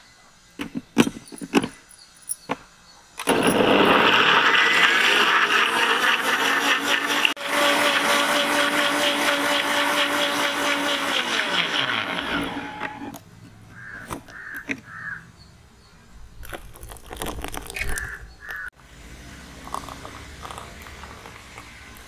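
Electric mixer-grinder blending pineapple chunks with a little water into juice: a few knocks as the fruit and jar are handled, then the motor runs loud and even for about ten seconds before cutting off. Quieter handling clatter follows.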